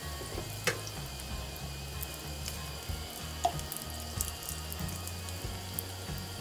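Sliced sausage sizzling and crackling in a hot skillet, with a couple of sharp clicks of a utensil against the pan as the slices are turned. Background music plays underneath.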